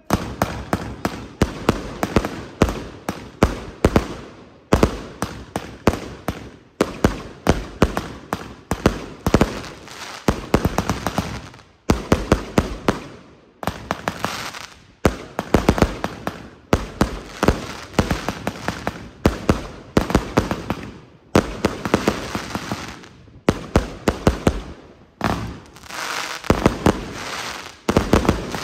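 Broekhoff 200-shot, 1.2-inch assorted fireworks display box (cake) firing: rapid volleys of tube launches and aerial bursts, several shots a second, with brief pauses between volleys.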